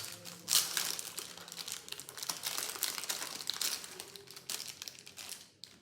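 Packaging crinkling and rustling as it is handled and crumpled, in quick irregular crackles that die away near the end.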